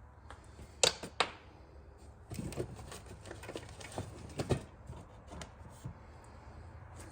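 Handling noises: scattered clicks and light knocks of objects being picked up and set down, with two sharp clicks about a second in.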